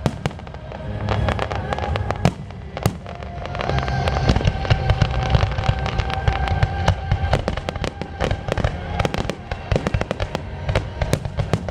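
Fireworks show: aerial shells banging and crackling in quick succession, thickening into a dense barrage in the second half, with music playing underneath.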